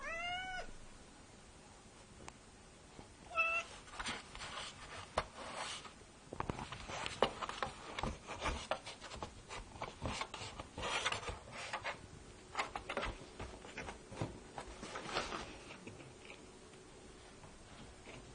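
A cat meows twice, a rising call at the start and a shorter one about three seconds later. This is followed by a long run of scratching and rustling, its claws and body scrabbling at a flat cardboard box as it tries to climb in.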